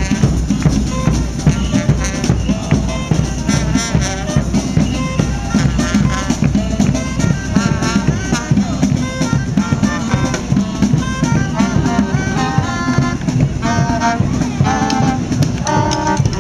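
Brass band with saxophones playing a tune over a steady drum beat.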